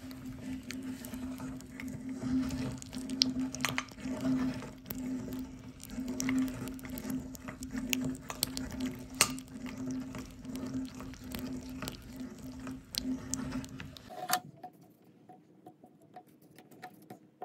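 Gummy candy being forced through a meat grinder's holed cutting plate: wet squishing with many sharp little clicks and pops, over a steady low hum. The hum stops about 14 seconds in and the sound drops to a quiet stretch.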